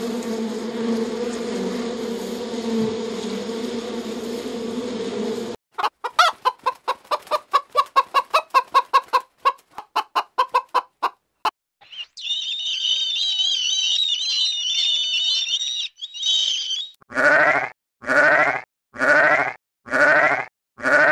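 Honeybees buzzing on the comb, a steady hum, which stops abruptly after about five seconds. Hens cluck in quick pulses, then there are high warbling chirps for about five seconds. Near the end, a sheep bleats five times.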